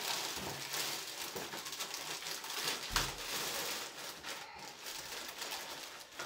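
Plastic gift bag crinkling and rustling as a boxed present is pulled out of it, with a single knock about three seconds in.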